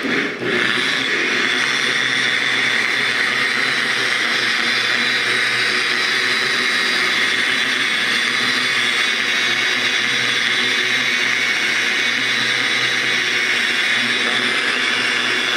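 Handheld electric rotary polisher running steadily at speed, its foam pad buffing compound over a painted aircraft rudder to remove orange peel. A brief dip in the motor sound about half a second in, then a level whir throughout.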